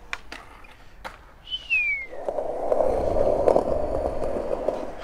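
Skateboard wheels rolling over concrete: a steady rough rumble that starts about two seconds in, after a few light clicks and a short falling whistle.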